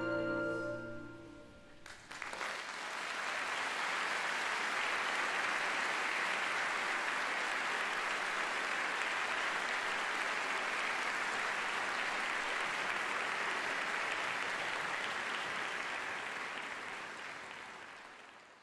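A held final chord from boy choir and orchestra dies away in the first two seconds. Audience applause then breaks out, runs steadily and fades out near the end.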